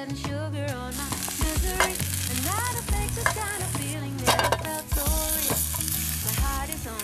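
Steady sizzling over a campfire, starting about a second in, under background music with a sung melody.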